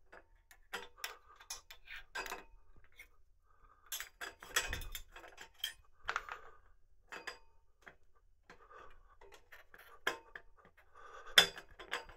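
Small metal parts clinking and tapping as they are picked up and handled, a string of irregular light clicks and knocks with one sharper clink near the end.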